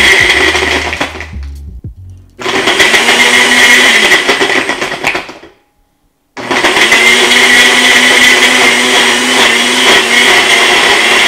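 Personal cup blender crushing a frozen açaí pack with ice, banana and milk, run in three bursts with short stops between, the motor spinning up at each start.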